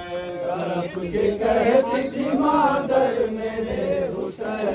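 Men's voices chanting a nauha, a Shia Muharram lament, in a slow wavering melody, opening on a held note.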